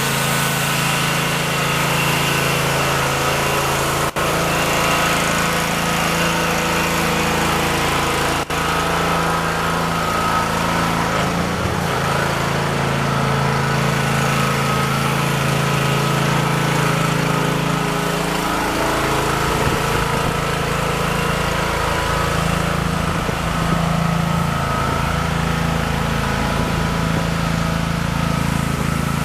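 Gas pressure washer's small engine running steadily, its pitch sagging briefly twice.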